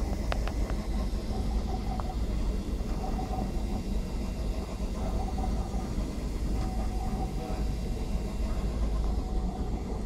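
Ultimaker 2 3D printer running a print: its stepper motors whine in short on-and-off stretches as the print head moves, over a steady mechanical hum and low rumble. A few light clicks come about half a second in.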